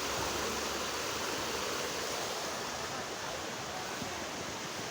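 Steady rush of flowing water from a stream and small waterfall running between the hot-spring pools.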